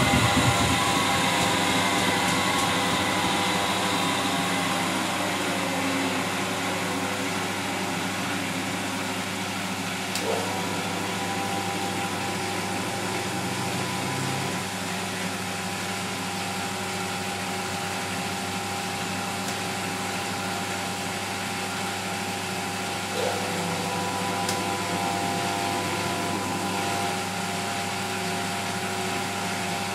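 Miele W 425 front-loading washing machine coming down from a spin: the motor's whine falls in pitch and fades over the first few seconds. The drum then turns the wash at tumbling speed with a steady motor hum, broken twice by a brief change in the motor's pitch as the drum starts up again.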